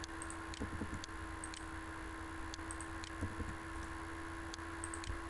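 Computer mouse clicking: scattered sharp single and double clicks, a second or more apart, over a steady electrical hum and hiss.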